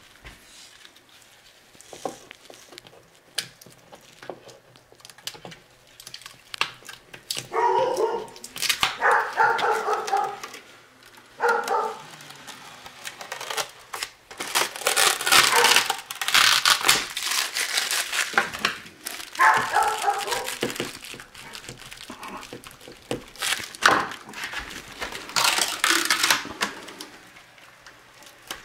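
Clear protective plastic film being peeled by hand off peel-and-stick metal backsplash tiles, crackling and crinkling in irregular bursts, with a few short pitched sounds in between.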